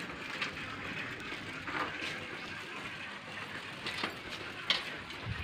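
A child's bicycle rolling slowly over paving stones, with a few brief, light clicks over a steady outdoor hum.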